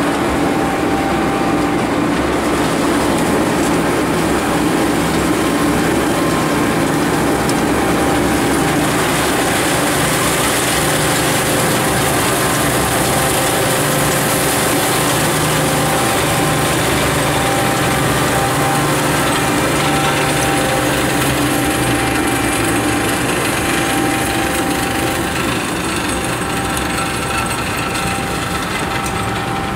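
Rhaetian Railway rotary snow blower Xrotmt 95403 at work clearing the track: a loud, steady mechanical drone with a strong hiss as the rotor throws snow. It grows slightly quieter near the end.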